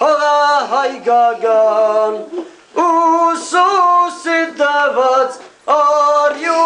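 A group of voices singing a song in Armenian, in phrases that break off briefly twice.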